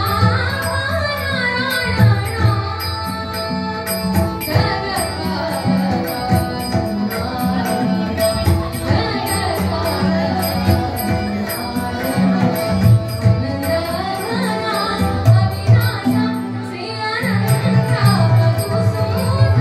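A woman sings a devotional bhajan in a gliding, ornamented melody. A harmonium sustains tones under her, a tabla plays low drum strokes, and small hand cymbals tick in a steady rhythm.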